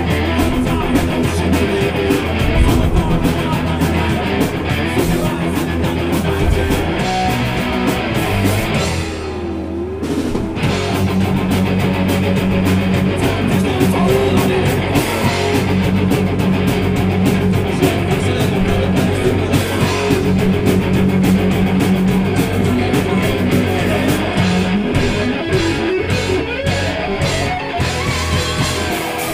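Heavy rock band playing live and loud: distorted electric guitars, bass and drum kit. About nine seconds in, the drums and cymbals drop out for a moment, leaving one wavering guitar note, before the full band comes back in.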